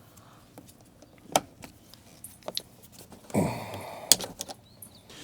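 Scattered light metallic clicks and clinks of a screwdriver and screws being handled at a truck door panel. There is a louder scraping rustle about three and a half seconds in, and a sharp click just after it.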